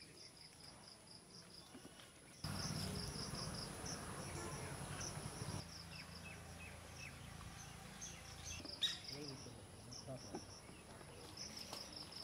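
Insects chirping in quick, even pulses over a steady high-pitched hum. About two and a half seconds in, the background suddenly gets louder with a low rumble, and a single sharp click stands out near the end.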